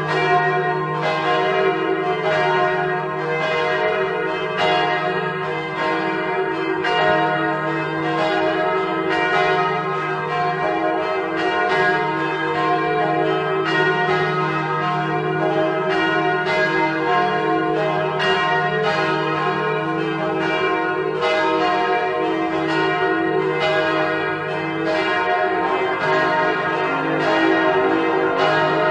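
Church bells swinging and pealing, strokes about one to two a second blending into a continuous ring over a steady low hum.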